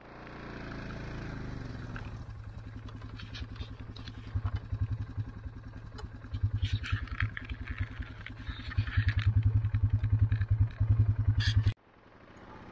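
ATV engine running as it is ridden, a steady low pulsing exhaust note that grows louder from about nine seconds in, then cuts off suddenly near the end.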